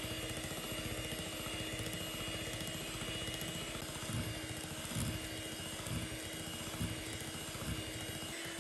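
Electric hand mixer running steadily, its beaters whisking a thick creamy mixture in a glass bowl, with a steady motor whine. A few soft low knocks come in the second half.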